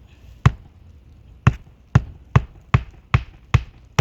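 Hammer driving a roofing nail through an asphalt shingle: a couple of separate blows, then a quick run of sharp strikes about two and a half a second.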